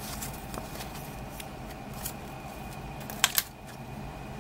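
Handling of a CD jewel case and its paper inlay card: light rustles and small clicks, then two sharp plastic clicks a little after three seconds in as the disc is pried off the case's centre hub.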